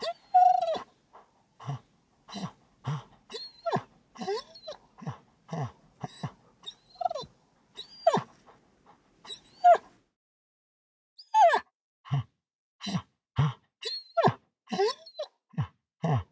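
Dog grunting, whining and panting in a quick, irregular run of short sounds: low grunts mixed with brief whines that bend in pitch. There is a pause of about a second roughly two-thirds of the way through.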